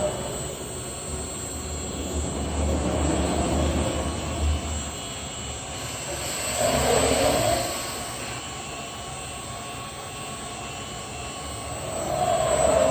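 Thermwood 5-axis CNC router's axis drives moving the gantry and swinging the spindle head: a steady machine whir that swells several times as the axes move, with a deeper rumble in the first swell and louder rises about halfway through and near the end.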